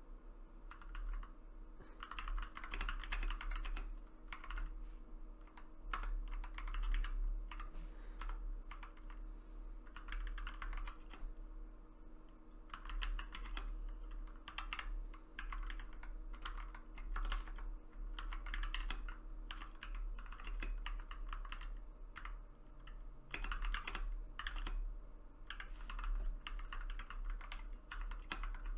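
Typing test on a 60% keyboard: runs of rapid key clacks lasting a second or two, broken by short pauses.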